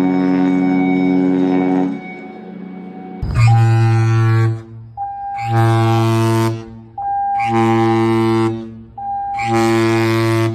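Ship's horn sounding the muster drill's general emergency alarm: four short, deep blasts about two seconds apart, each about a second long, with a higher electronic alarm tone sounding between the blasts. Before the blasts, a steady droning tone with many overtones cuts off about two seconds in.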